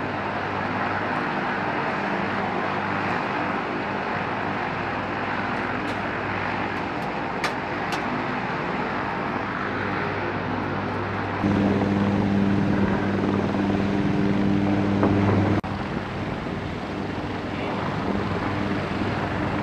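Steady running noise of aircraft engines on a flight line. A louder, deeper hum comes in a little past the middle and cuts off sharply a few seconds later.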